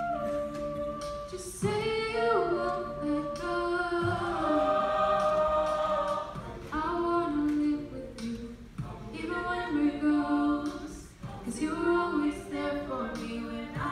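An a cappella group singing in layered harmony, with vocal percussion keeping the beat with a hit every couple of seconds.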